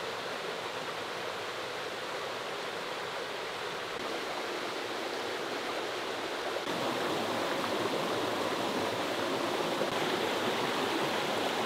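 Shallow rocky mountain stream running over stones and small cascades, a steady rush of water that gets a little louder about two-thirds of the way in.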